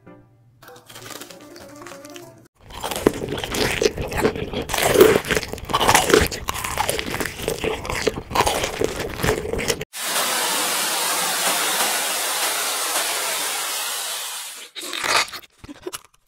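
Close-miked eating sounds: loud, dense crunchy bites and chewing of coated fried food, then a steady even hiss for about five seconds, and a few last crunches near the end.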